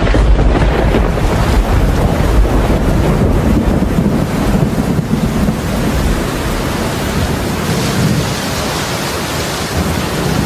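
Thunderstorm: a rumble of thunder breaks in suddenly at the start, over a steady hiss of heavy rain.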